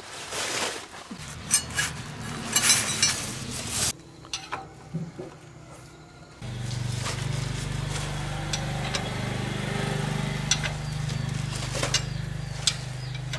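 Metal clinks and scrapes of a ring spanner working the drain bolt at the bottom of a rickshaw's rear-axle differential housing, loosening it to drain the old gear oil. About six seconds in, a steady low hum sets in abruptly and runs on under a few sharp clicks.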